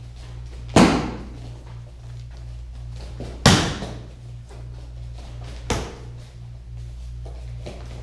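Sharp smacks of kicks striking a kicking pad, three in all, a couple of seconds apart, the last one lighter. Background music with a low pulsing beat runs underneath.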